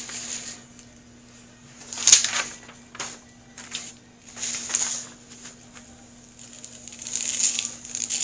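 Sheet of paper crinkling and rustling in several short bursts as loose glitter is handled and sprinkled onto a glitter tumbler, the loudest burst about two seconds in. A faint steady hum from the cup turner's motor runs underneath.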